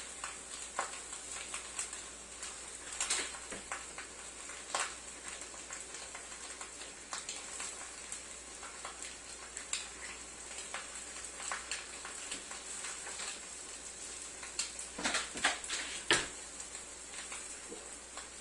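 A cat's paws tapping and scratching at a stainless steel refrigerator door in scattered light taps, with a quicker, louder run of taps late on.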